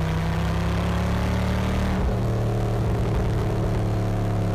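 Superlite SLC's LS3 V8 engine and exhaust running steadily while the car is under way, over road and tyre noise. About two seconds in the engine note drops abruptly to a lower pitch and holds there.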